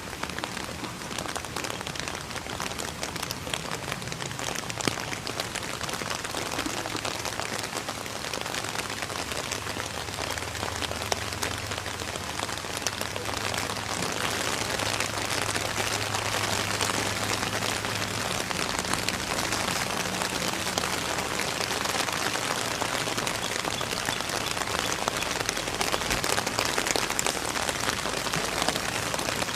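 Steady rain falling, a dense patter of drops that gets a little heavier about halfway through.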